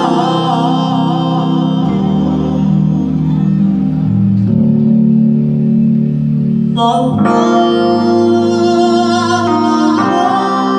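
Live jazz-funk band playing: sustained keyboard chords over electric bass and electric guitar. The harmony changes a few times, with a fresh chord coming in about seven seconds in.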